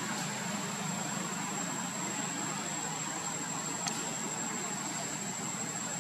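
Steady outdoor background noise: an even hiss over a low hum, with a thin, high, unchanging tone on top and one faint click about four seconds in. No monkey calls.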